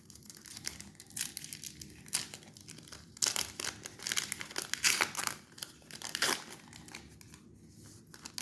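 A trading-card pack's foil wrapper being torn open and crinkled by hand, a run of crackly rustles that is busiest over the middle few seconds and then dies away.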